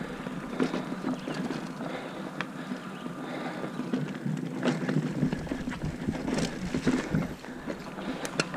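Mountain bike ridden over a rough dirt trail: a steady rumble of tyres on the ground with irregular rattles and knocks from the bike as it goes over bumps.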